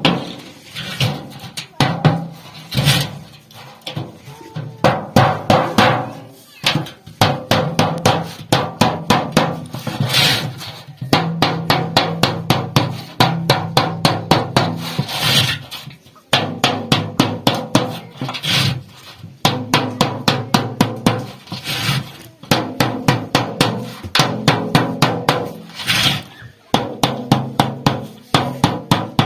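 Hammer striking sheet steel from an old refrigerator being shaped into a pot, in rapid runs of blows, several a second, with short pauses between runs.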